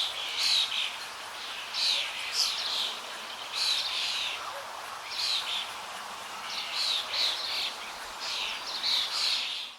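Birds chirping in short bursts every second or so over a steady hiss of flowing water; the sound cuts off abruptly at the end.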